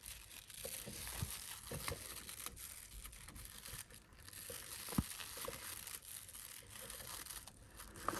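Faint rustling of paper yarn being worked with a crochet hook into single crochet stitches, with a few soft ticks, the clearest about five seconds in.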